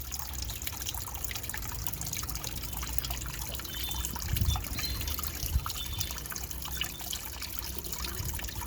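Water trickling and lightly splashing, with many small drips and droplet ticks.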